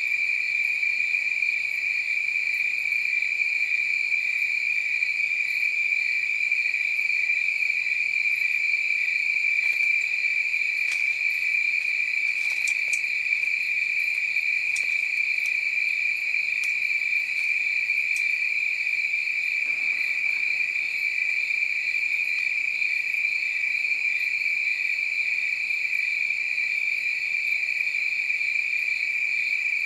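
Crickets chirping in a dense, steady chorus, one high pulsing trill held at a constant pitch with fainter higher insect trills above it. A few faint ticks come about halfway through.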